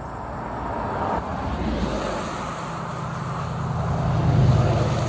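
A motor vehicle passing on a road: engine hum and tyre noise swell, loudest a little past four seconds in, then start to fade.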